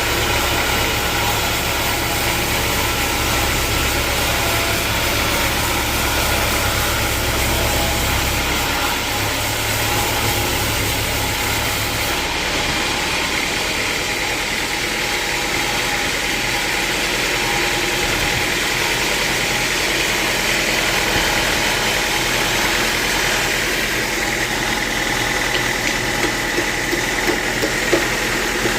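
Sawmill machinery running steadily: a continuous mechanical drone with a high whine. The low hum drops away about twelve seconds in, and a few short knocks come near the end.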